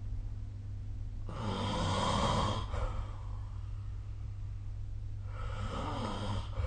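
A sleeping person snoring: two rasping breaths about four seconds apart, each lasting a little over a second, the first louder. A steady low hum runs underneath.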